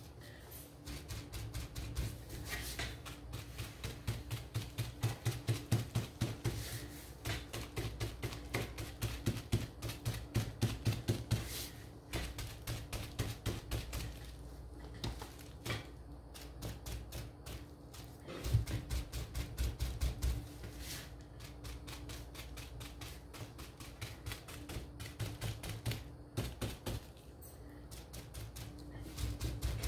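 Rapid dabbing of a wad of crumpled plastic on wooden windmill pieces and a plastic paint tray while sponge-painting an aged-metal finish: runs of quick soft taps with short pauses, over a steady low hum.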